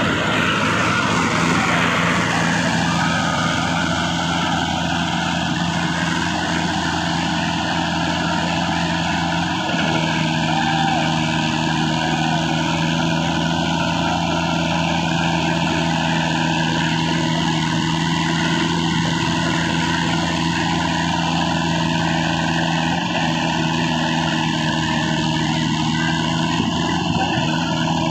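Diesel engines of two tractors, a Massey Ferguson 1035 and a Mahindra 575 DI, running steadily under heavy load as they pull against each other. The pitch stays constant throughout.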